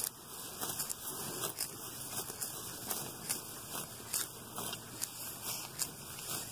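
Cow grazing tall grass, heard close to its mouth: crisp ripping and crunching as it tears mouthfuls free between its lower teeth and upper dental pad, at about two rips a second.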